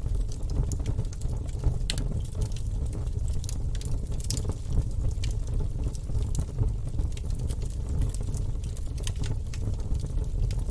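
Wood fire burning in a fireplace: a steady low rumble of flames with frequent sharp crackles and pops from the logs, a few louder ones about two and four and a half seconds in.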